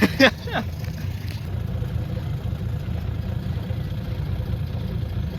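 Small boat's outboard motor idling, a steady low rumble.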